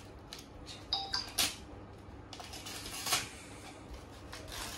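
Gift wrapping paper rustling and tearing as a present is unwrapped by hand, with sharp rips about a second in and again about three seconds in.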